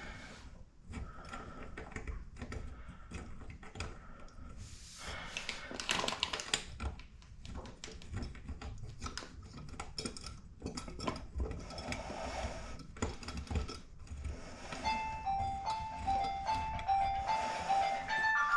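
Irregular clicks, knocks and scraping of hand work, then about fifteen seconds in a simple electronic tune of short notes stepping back and forth between two pitches starts and keeps going.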